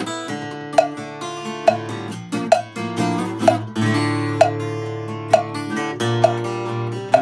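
Acoustic guitar strumming, with a muted cowbell struck by a wooden stick on the beat: a short, sharp clank about once a second.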